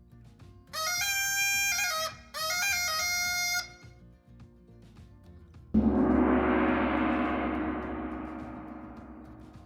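Added sound effects: two short electronic chime phrases, each stepping through a few pitches. Then a single loud gong-like crash that rings and slowly fades away.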